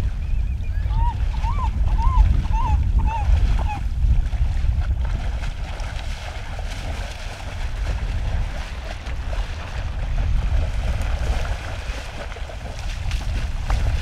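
Wind buffeting the microphone over the rush of shallow creek water, with splashing as a brown bear wades through it, heavier near the end. In the first few seconds a bird calls about six times in quick succession.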